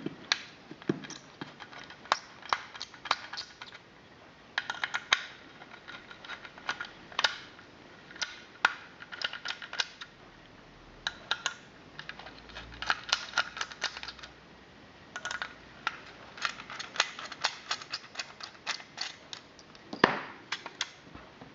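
Screwdriver and hand clicking and ticking against a View-Master Model D viewer's case as its four screws are taken out. Many small sharp clicks come in irregular clusters, with one louder knock near the end.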